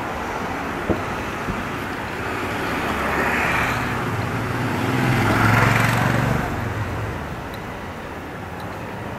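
A motor vehicle passing along the street: its engine drone and tyre noise swell to a peak about six seconds in and then fade away, over a steady hum of city traffic.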